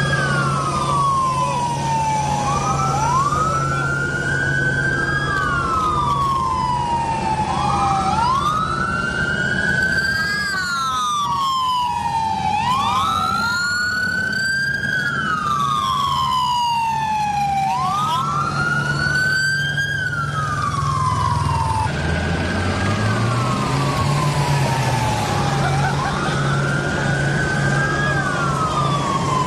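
Several police sirens wailing together, slightly out of step. Each slowly rises and falls in pitch, one full cycle about every five seconds, over a steady low drone.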